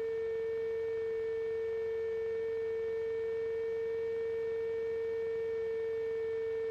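A steady electronic tone on one unchanging pitch with fainter overtones above it, a hum in the cockpit intercom audio; the engine is not heard rising with the takeoff run.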